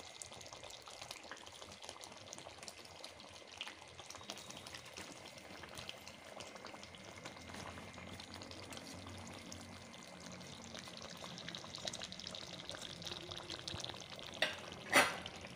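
Chicken curry gravy simmering in a steel pan with a faint, steady crackle and bubble while a ladle stirs through it. Two sharp knocks come near the end.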